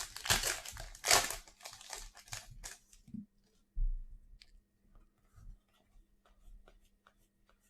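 Plastic trading-card pack wrapper being torn open and crinkled for about three seconds, followed by a few faint taps and a soft thump as the cards are handled.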